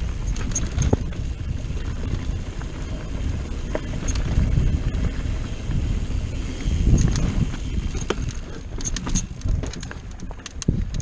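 Mountain bike rolling along a dirt singletrack: a steady low rumble from the tyres and the ride, with scattered clicks and rattles from the bike and the trail.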